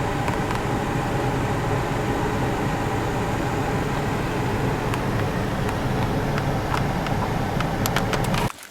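Steady, loud vehicle noise, a constant rumble with road and engine noise, that cuts off abruptly near the end.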